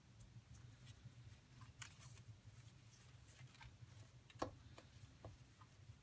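Faint rustling and soft ticks of nylon paracord being handled and pulled tight while tying cobra-weave knots, with one sharper click about four and a half seconds in, over a low steady hum.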